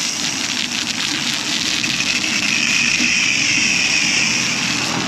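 Self-serve car wash spray wand spraying a jet of coloured foam onto a truck's fender, a steady hiss of spray hitting the bodywork over a steady low hum.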